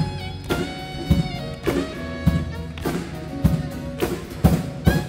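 Live gospel band playing the instrumental introduction to a song: sustained instrument chords over a steady drum beat.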